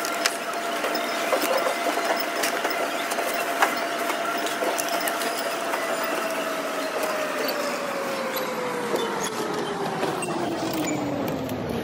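Supermarket checkout conveyor belt's motor whining steadily, its pitch sliding slowly lower over the second half as it slows, with scattered clicks of groceries being handled on the belt.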